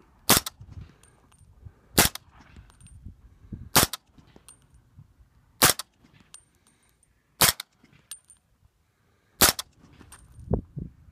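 Six suppressed shots of 300 Blackout subsonic ammunition from a 9-inch barrel fired through a DM Titanium suppressor whose baffles have been clipped, evenly paced about two seconds apart. Each shot is a sharp crack, and a short, light metallic ping follows most of them.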